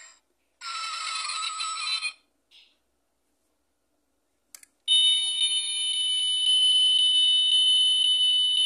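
Electronic sound effects from the 1/24 diecast Audi R8 V10 plus model's built-in sound module, played through its tiny speaker with no bass: a short burst of sound lasting about a second and a half, a click near the middle, then a steady electronic alarm-like tone for about four seconds.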